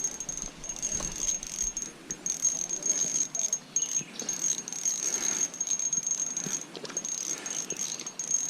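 Irregular clicks and rustles of fishing tackle being handled just after a fish is landed, over a steady high insect buzz that keeps breaking off and starting again.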